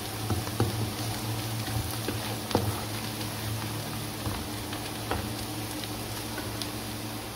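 Sliced onions sizzling in hot oil in a wok, stirred with a spatula that scrapes and knocks against the pan a few times, over a steady low hum.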